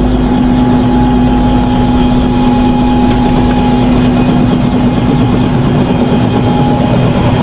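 Helicopter running, a loud, steady drone with a constant whine above it and no change in pitch.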